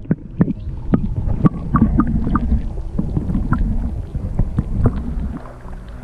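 Muffled underwater sound picked up by an action camera in its waterproof housing, held in the river: a low rumble with irregular clicks and knocks.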